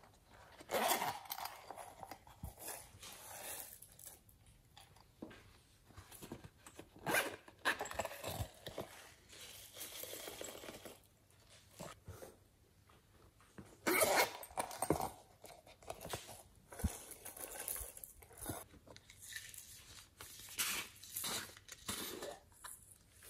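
Hands handling and squeezing silicone pop-it toy cases, one of them a zippered pouch, making irregular rustling, clicking and crunchy handling noises in bursts with short quiet gaps.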